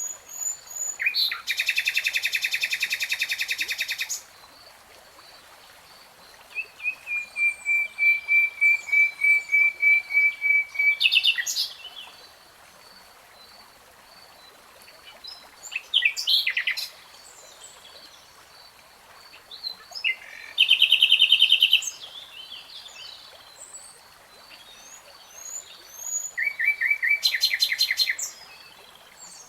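Common nightingale singing in separate phrases with pauses between them: a rapid trill, then a run of about a dozen repeated whistled notes at one pitch that grow louder, then shorter varied phrases. A faint, fast, even chirping continues behind.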